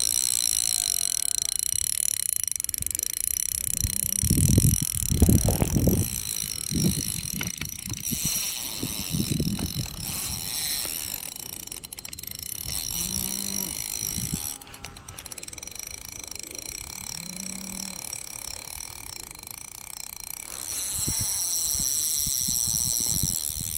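A steady, high-pitched chorus of insects, with low rumbles of wind or handling on the microphone about four to six seconds in and again around nine seconds. Two short low calls come around the middle.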